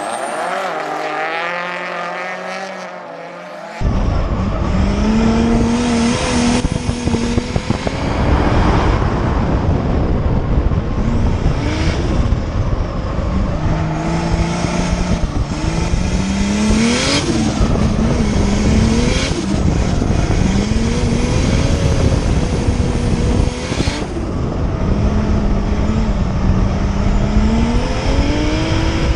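Drift car engine revving hard, its pitch climbing and dropping again and again as it slides through the course. The first few seconds are heard from beside the track. About four seconds in the sound cuts suddenly to onboard audio from a hood-mounted camera, with heavy wind rumble on the microphone under the engine.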